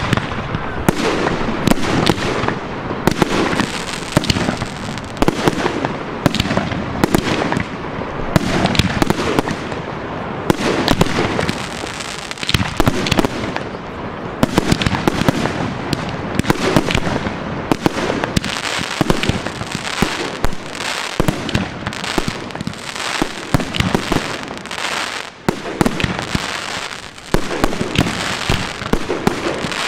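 Professional fireworks display: aerial shells bursting in rapid succession, a dense barrage of sharp bangs, with a short lull about 25 seconds in before it picks up again.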